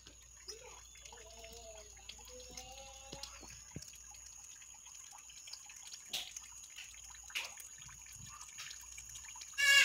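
Water dripping after rain: a few separate drops over faint outdoor ambience, with some faint wavering calls in the first seconds. A short, louder pitched sound comes just before the end.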